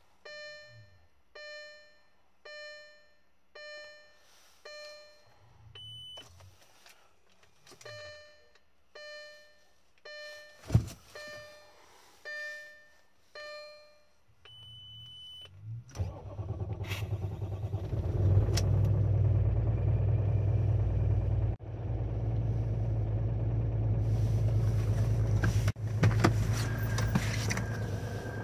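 A dashboard chime dings about once a second, with a sharp click midway. Then the 2005 Audi A4 B7's 3.0 TDI V6 diesel cranks briefly and catches, and it settles into a loud, steady idle: a cold start at −27.5 °C with no glow-plug preheating.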